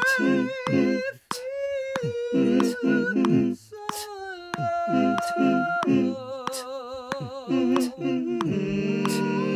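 Wordless, multi-tracked a cappella voices: a held, wavering sung note over a steady pulse of short low hummed notes, punctuated by sharp clicks. A fuller layered hummed chord swells in near the end.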